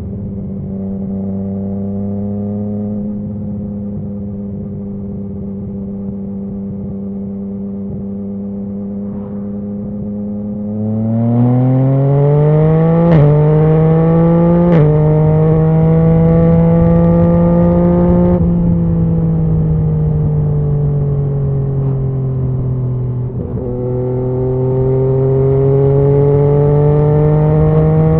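2019 Yamaha MT-09's crossplane inline-three engine through a Scorpion Serket carbon full exhaust, holding a steady note, then accelerating from about eleven seconds in. Two quickshifter upshifts come in quick succession, each a sharp crack and a sudden drop in pitch. The revs then fall away slowly off the throttle, and it pulls up again near the end.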